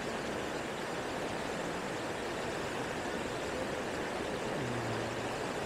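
Steady rush of a fast, shallow mountain river running over rocks and rapids.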